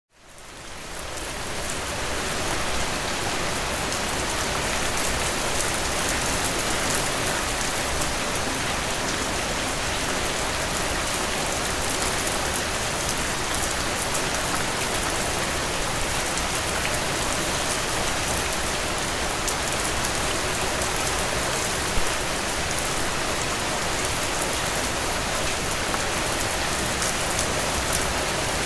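Steady rain falling, a dense even hiss of drops with fine patter of individual drops, fading in over the first couple of seconds. A single slightly louder drop hit comes about 22 seconds in.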